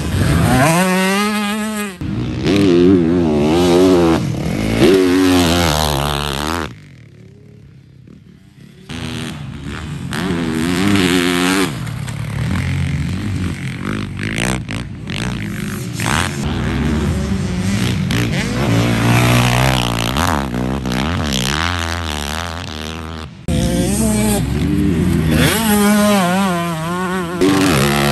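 Dirt bike engines revving hard and shifting as the bikes accelerate and corner past on a motocross track, in a run of short clips; the engine pitch climbs and falls over and over, with a quieter gap of about two seconds around a quarter of the way in.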